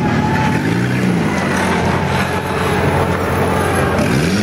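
Engine of a battered demolition-derby car running as it drives slowly over grass, its pitch rising and falling about a second in and again near the end.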